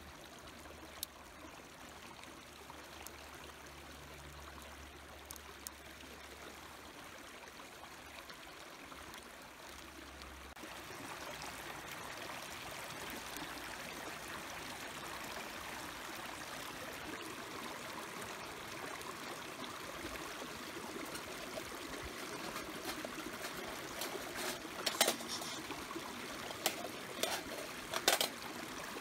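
Mountain stream flowing steadily. Near the end come several sharp metallic clinks as a gloved hand handles the charcloth tin in the folding metal stove.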